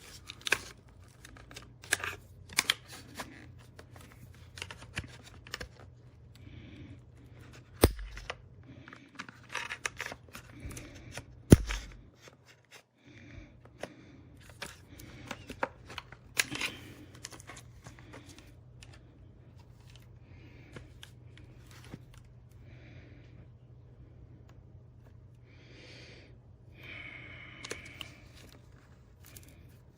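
Plastic case of an external hard-drive enclosure being pried and worked apart by hand: irregular clicks, snaps and scraping, with two sharper knocks about eight and twelve seconds in, over a steady low hum.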